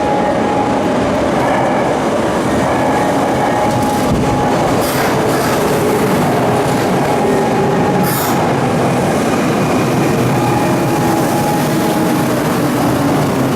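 Karasuma Line subway train running into the underground platform: a loud, steady rumble of wheels and motors with a faint whine whose pitch slowly falls near the end as it slows, and two short hisses about five and eight seconds in.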